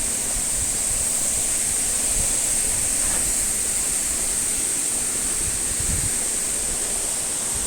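Steady rushing of a mountain stream, an even noise with a constant high hiss running through it.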